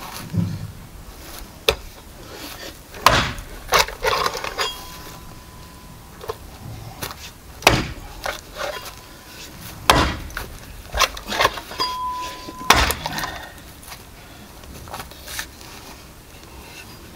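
An axe chopping through a pig's head on a wooden stump chopping block: a series of heavy, irregularly spaced chops into bone, with a few lighter knocks between them.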